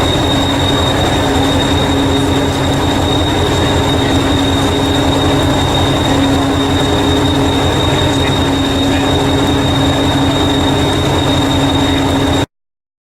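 Miniature railway train running on its track: a steady high whine over a fast, dense rumble from wheels and track, cutting off abruptly near the end.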